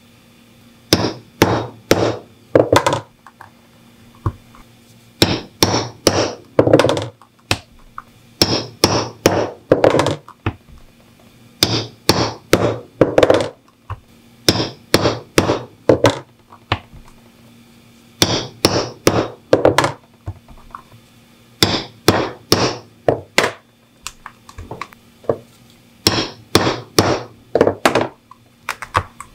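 A white mallet striking a small leather punch, driving it through leather into a wooden board: sharp knocks in bursts of four or five quick blows with short pauses between, each burst punching one stitching hole.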